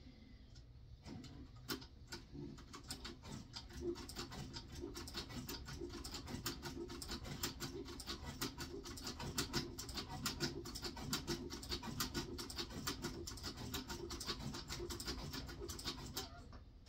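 Heavy-duty cylinder-arm leather stitching machine sewing through thick 9–10 oz saddle-skirting leather, a fast, even run of needle strokes over a low hum. It starts about a second in and stops just before the end.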